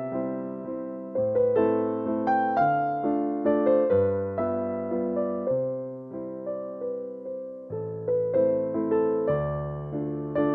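Background music: a keyboard melody over chords, each note struck and dying away.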